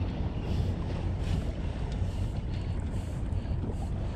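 Wind rumbling on the microphone over water around a small fishing boat, with faint soft splashes about once a second.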